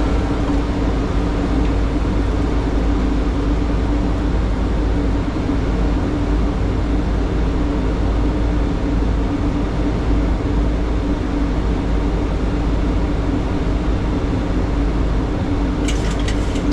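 Steady flight-deck noise of a Boeing 737 on approach: airflow and engine drone with a deep rumble and a steady hum. A few sharp clicks come near the end.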